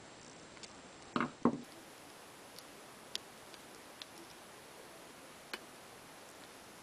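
Small clicks and taps of an open plastic inline cord switch and its wires being handled, with a louder double knock about a second in as a screwdriver is set down on the workbench.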